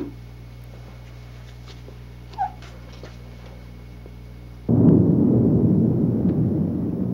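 A sudden loud, deep rumbling sound effect that starts about two-thirds of the way through and slowly fades, over a low steady hum; a short high whine is heard about two and a half seconds in.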